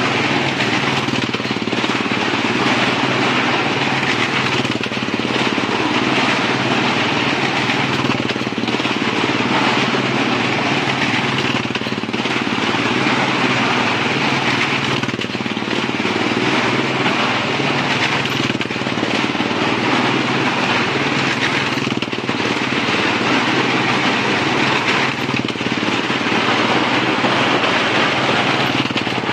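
Motorcycle engines running at steady high revs as they circle the wall of a well of death, the sound dipping briefly about every three and a half seconds as each lap goes round.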